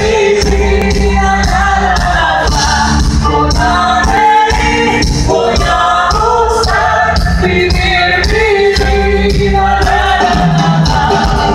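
Live band music with singers, a steady beat under sung melody lines, amplified through the hall's sound system.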